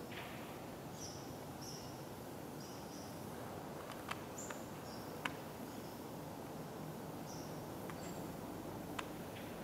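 Quiet steady background hiss with short, faint high-pitched chirps at irregular intervals and a few sharp clicks.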